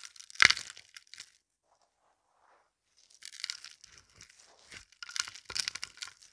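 Dry crunching and crackling as a hand crushes and drops handfuls of gritty debris, small shells and beads onto a pile: a cluster of crunches with one loud thud about half a second in, a quiet gap, then more bursts of crunching from about three seconds in. No vacuum motor runs.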